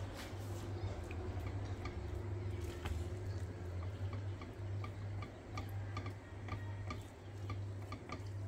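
Wooden spoon turning cooked rice in a stainless steel pot: light clicks, about two a second, over a steady low hum.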